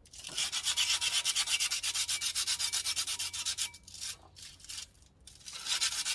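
Rapid back-and-forth hand sanding with abrasive paper on the rusty inner edge of a car's front brake disc, with two short pauses about two-thirds of the way through. The rust being rubbed off is what the owner suspects is causing a front brake squeak.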